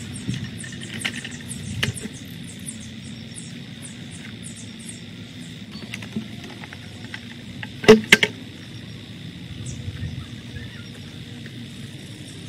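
Potting soil pouring and sliding out of a plastic bucket into a nursery pot, a steady low rustle with small clicks, and two sharp knocks in quick succession about eight seconds in.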